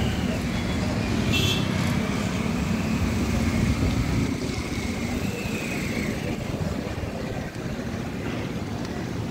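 Road traffic passing: a steady rumble of car, motorbike and truck engines and tyres on the road.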